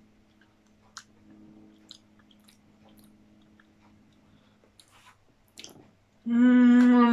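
Quiet mouth sounds of someone eating a spoonful of chocolate spread: faint lip smacks and tongue clicks. About six seconds in comes a loud, long closed-mouth "mmm" of approval that holds steady, then wavers.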